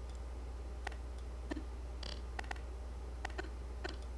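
Computer mouse clicking, about eight short separate clicks at uneven intervals, over a steady low hum.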